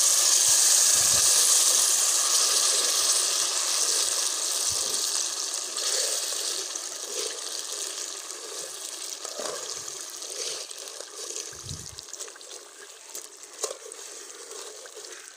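Ghee and sugar sizzling in a hot aluminium karahi after a splash of water has gone in, loud at first and slowly dying down, while a metal spatula stirs and scrapes against the pan a few times.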